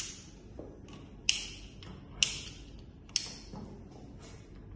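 Wall-mounted light switches on a practice wiring board clicked on one after another: a series of sharp clicks, the loudest about one a second, with fainter clicks between, as the lamps on the board are switched on.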